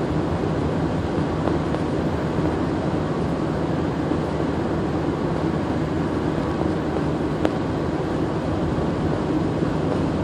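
Steady road and engine noise of a car driving along a highway, heard from inside the cabin, with one small click about seven and a half seconds in.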